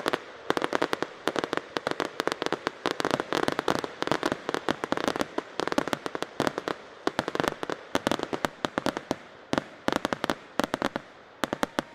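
Fireworks going off in a dense, rapid barrage of sharp bangs, many per second, over a continuous haze of crackle. The barrage thins a little near the end.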